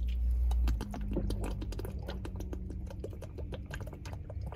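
Drinking from a thin plastic water bottle: gulps and swallows mixed with the plastic crackling as the bottle is tipped up and squeezed, a rapid run of small clicks.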